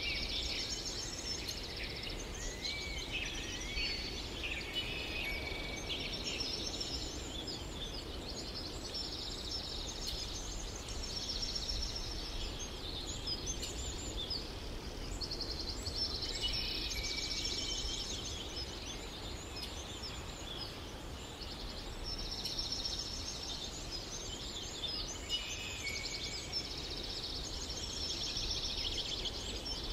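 Birds chirping and singing in repeated trilling phrases that come and go in bouts, over a steady low rumble.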